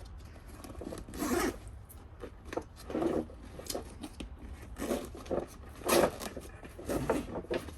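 Zipper on a 5.11 Rush Moab 10 sling bag being pulled open in several short strokes about a second apart, with the bag's fabric rubbing as it is handled.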